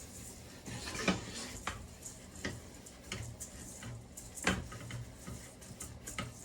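A utensil stirring rice in a skillet, knocking against the pan several times, the loudest knock about four and a half seconds in, as the rice toasts in butter.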